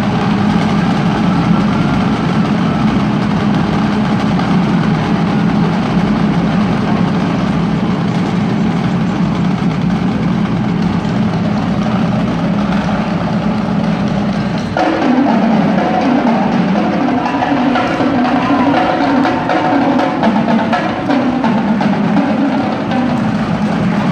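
A drumline of snare drums, tenor drums and bass drums playing a loud, fast percussion routine together. About fifteen seconds in, the pattern changes abruptly to a new passage.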